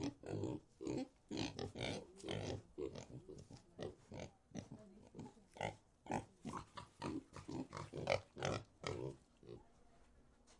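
Pigs grunting and oinking in quick, irregular short calls, several a second, thinning out and dying away near the end.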